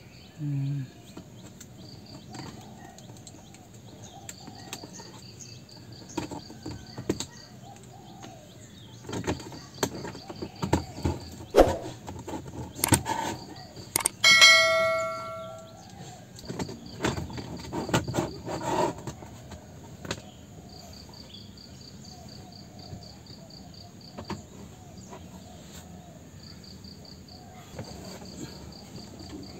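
Plastic dashboard trim clicking and knocking as it is pried off with a trim removal tool, with a single short ringing ding about halfway through. Faint crickets chirp steadily in the background.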